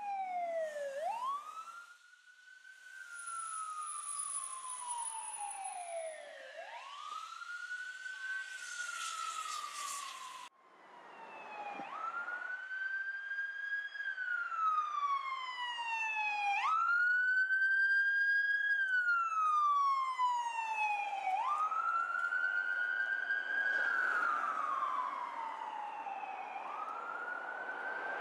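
Fire engine and rescue ambulance sirens on a slow wail, each cycle rising quickly and then sliding down over four to five seconds. The sound breaks off briefly about two seconds in and again about ten seconds in, and the wail from about ten seconds on is louder.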